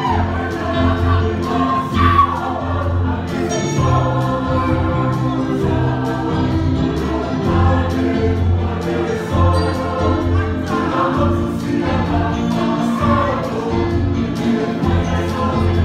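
A group of voices singing a Samoan dance song in harmony, accompanied by a strummed acoustic guitar, at a steady tempo.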